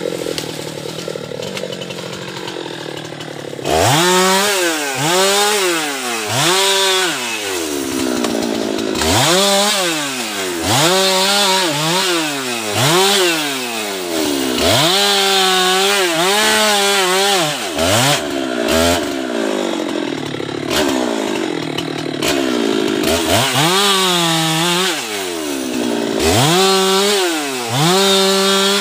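Husqvarna two-stroke chainsaw idling, then revved in repeated bursts about once a second as it cuts through guava wood. Its pitch climbs and drops with each burst.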